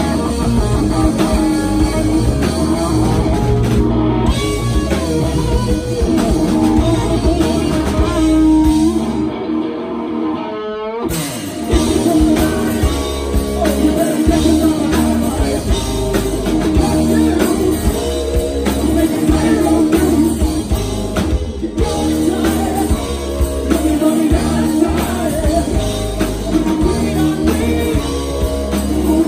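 Live rock band playing: distorted electric guitars, bass and drums, with singing. About ten seconds in the drums and bass stop briefly, leaving a single wavering, rising tone, and then the full band comes back in.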